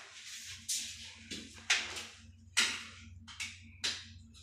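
About six short, sharp rasping sounds, spaced roughly half a second to a second apart, as grit-faced anti-slip tape is pulled from its roll and cut with a utility knife.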